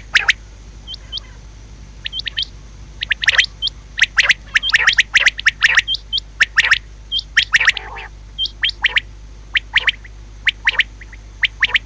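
Female common quail calling: short, sharp chirped notes in quick irregular clusters, with fainter little hooked notes higher up between them.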